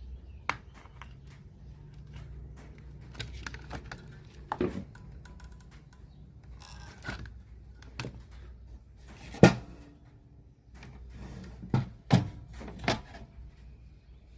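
Irregular clicks and knocks from a radio cassette player and small parts being handled during repair, the sharpest knock about nine and a half seconds in and a few more around twelve to thirteen seconds. A low steady hum runs underneath.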